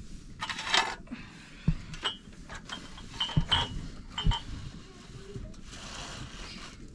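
Irregular knocks and light metallic clinks, a few of them ringing briefly, with a short rushing scrape about half a second in and another near the end.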